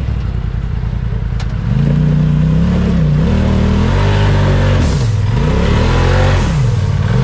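Side-by-side UTV engine revved hard in repeated surges while climbing a rock ledge, its pitch rising and falling three or four times. The surges start about a second and a half in.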